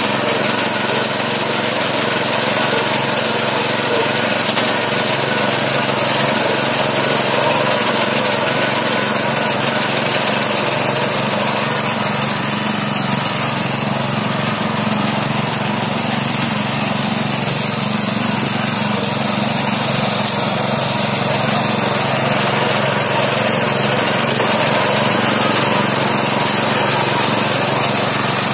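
Walk-behind reaper's small engine running steadily while the machine cuts tall green crop.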